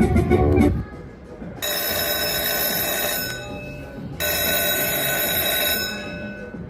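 Slot machine sounds: its music stops about a second in, then an electronic bell-like ringing comes twice, each ring lasting a bit under two seconds.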